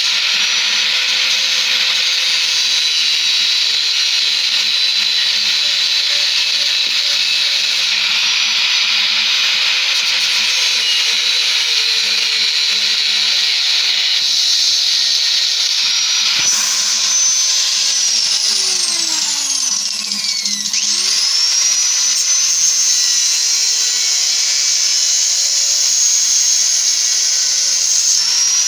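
A power tool running steadily with a high whine. About twenty seconds in, it slows and speeds up again.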